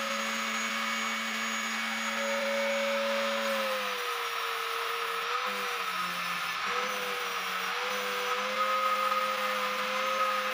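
Handheld electric angle grinder running with a steady whine while grinding on the metal of a Kawasaki KLX150's suspension linkage. Its pitch sags and wavers several times in the middle as the disc is pressed into the part under load, then steadies.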